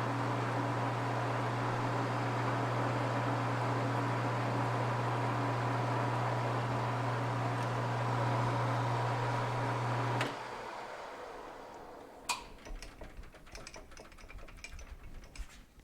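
Metal lathe motor running steadily with a low hum, then switched off and stopping abruptly about ten seconds in. Scattered light clicks and clinks of metal being handled follow.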